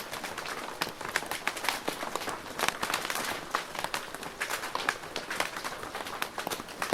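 Rain falling on a plastic roof: a steady patter of many separate drop hits, with louder individual plinks scattered throughout.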